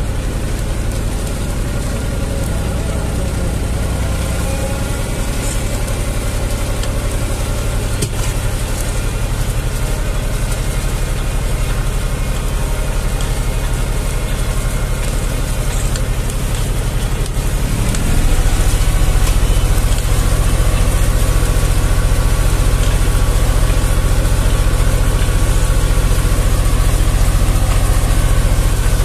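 Zetor 5011 tractor's three-cylinder diesel engine running steadily under load while pulling a two-furrow plow. About two-thirds of the way through, the engine's pitch rises and it runs louder from then on.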